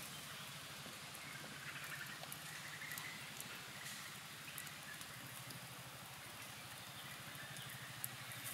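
Faint crackle of a wood campfire: scattered small ticks and pops over a steady low, rapidly pulsing hum from the surroundings.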